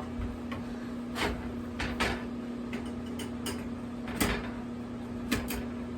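Leg poles of an animatronic Halloween prop being handled and fitted into its base: a string of separate knocks and clacks, the loudest about four seconds in, over a steady low hum.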